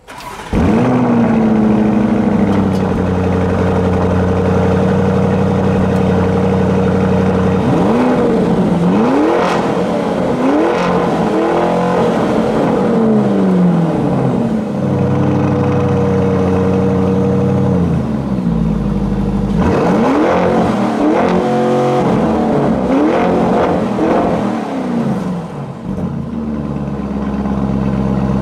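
Lamborghini Urus twin-turbo V8 heard at its valve-controlled sports exhaust: it comes in with a quick flare, then settles to a steady idle. It is revved twice in short bursts of blips, each rising and falling, about eight seconds in and again about twenty seconds in, dropping back to idle between them.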